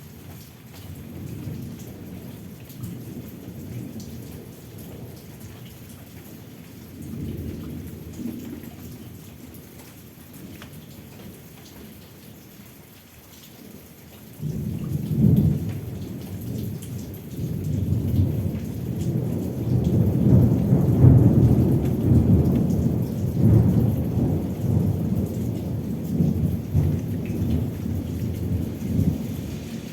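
Steady rain with thunder rumbling low. Soft distant rumbles in the first half give way about halfway through to a much louder rolling peal that builds for several seconds, then eases off near the end.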